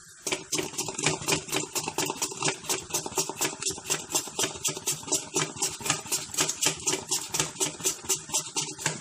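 Peeled potato being rubbed back and forth over the blade of a handheld plastic potato-chip slicer, shaving off thin slices in a fast, even rhythm of about five strokes a second.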